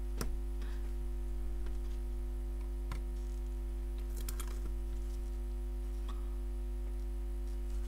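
Steady electrical mains hum, with a few faint clicks of a metal pick against a phone logic board as a sticker is peeled off.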